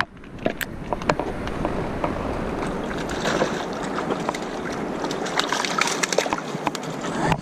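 Fast-flowing river water rushing over rapids, a steady hiss, with scattered sharp clicks and knocks close by throughout.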